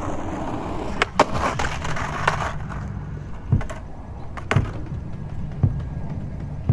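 Skateboard rolling on asphalt, with sharp clacks about a second in and again near two seconds as the board hits the concrete ledge and comes off it, on a trick attempt he doesn't ride away from. Then single knocks as the board is set down and picked up, and footsteps.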